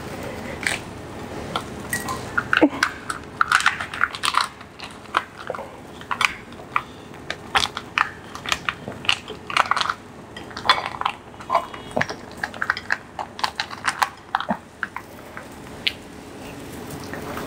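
Hands handling crisp lettuce leaves and rolling a rice-paper spring roll on a plate, close to the microphone: an irregular run of crisp crackles, rustles and light taps.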